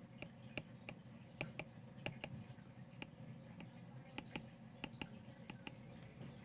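Faint, irregular light clicks and taps of a stylus on a drawing tablet during handwriting, a couple of taps a second or so, some in quick pairs.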